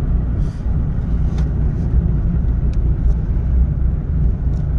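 Steady low rumble inside the cabin of a 2014 Mitsubishi Mirage driving slowly at about 20 mph. The rumble is engine and road noise from the small car, which is fitted with a replacement CVT.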